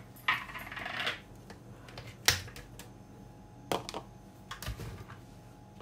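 A few sharp clicks and knocks of plastic kitchenware handled on a countertop as a plastic strainer jug is set down, with a brief rustle at the start. The sharpest click comes a little past two seconds in.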